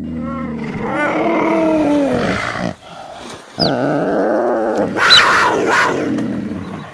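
Big cat calls: two long pitched calls. The first falls in pitch and ends about two and a half seconds in. The second starts about a second later and carries a brief high squeal near its middle.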